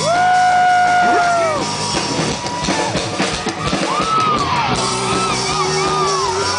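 Live hard rock band playing loudly: an electric guitar solo of long held notes bent up and down, over drums and bass.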